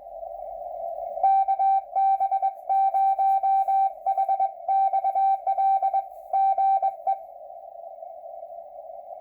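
Morse code (CW) on an amateur radio receiver: a single steady beep keyed on and off in dots and dashes from about a second in until about seven seconds in, over the constant hiss of the receiver's narrow CW filter.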